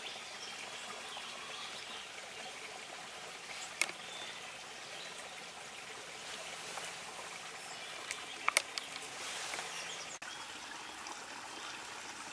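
Steady outdoor background hiss, like running water or wind, with a sharp click about four seconds in and a few more about two thirds of the way through.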